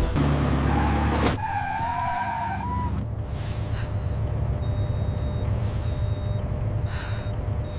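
Low, steady vehicle engine rumble that starts suddenly with a rush of noise. A wavering whine sounds for about two seconds near the start, and short high electronic beeps come in the second half.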